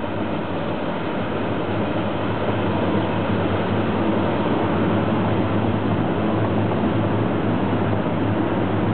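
Passenger train running away along the tracks: a steady rumble and hiss with no distinct wheel clacks.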